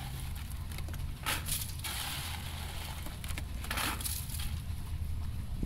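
Ice cubes being scooped from a plastic tub with a cup and dumped into a plastic five-gallon bucket, rattling and crunching in a few short bursts, over a steady low rumble.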